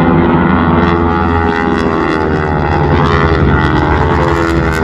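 North American T-6 Texan radial engines droning through aerobatic flight. The drone holds steady and sinks slightly in pitch over the last couple of seconds.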